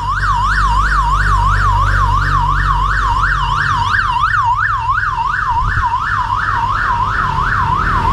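Electronic siren sounding a fast yelp, about three rising-and-falling sweeps a second, over a steady low rumble of wind on the microphone of a moving bicycle.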